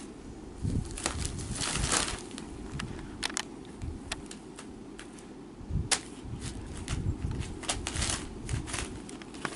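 Crumpled brown paper crinkling and rustling in irregular snaps as Bengal kittens paw at and pounce on it, with a few soft thumps of paws landing; the sharpest snap comes about six seconds in.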